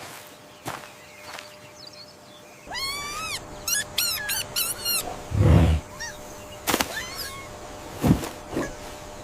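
An animal's high squealing calls: one rising call about three seconds in, then a quick run of shorter ones, followed by a few dull thumps and a sharp knock.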